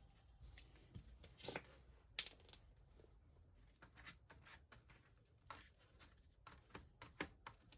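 Faint scattered clicks and light scrapes of veneer and plywood being handled while PVA glue is spread on them, the sharpest about one and a half, two and seven seconds in.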